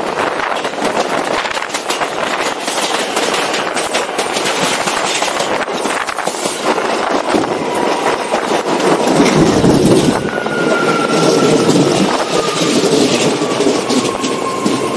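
New York City Subway train running at speed on outdoor track, heard from a camera mounted on the outside of the car: a steady rush of noise with wheels clicking over the rails. From about two-thirds of the way in, the running grows louder and a thin whine slowly falls in pitch.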